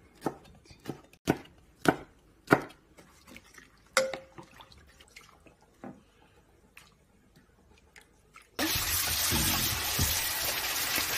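A few sharp knife strokes on a wooden cutting board and a light clink about four seconds in. Then, about eight and a half seconds in, a tap runs hard into a stainless steel pot of raw beef short ribs, a loud steady rush of water that is the loudest sound here; the ribs are being soaked to draw out the blood.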